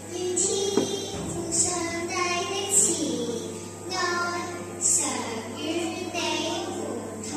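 A young girl singing into a microphone, her voice starting just after the beginning and carrying on in phrases, over a low steady hum.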